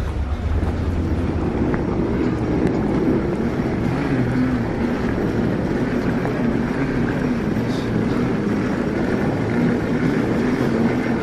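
A vehicle engine running steadily, a low drone with a wavering hum.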